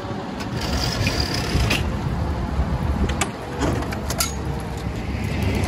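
Fire engine idling with a steady low rumble, with a few sharp clicks and knocks scattered through the middle.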